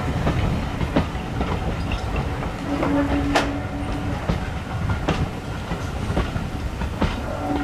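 Passenger coaches rolling past at close range: a steady wheel rumble with sharp clacks every second or two as the wheels cross rail joints. A steady low tone sounds for a moment about halfway through.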